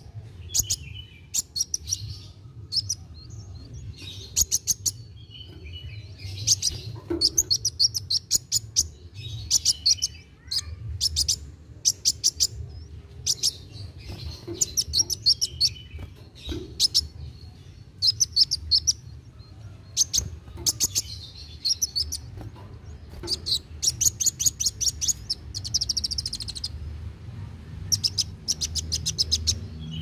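Male sunbird (kolibri wulung) singing in full voice: quick runs of high, thin chirping notes that come again every second or two.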